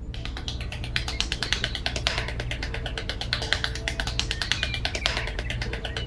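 A small hand trowel scraping and scooping sand in quick, short strokes, over background music.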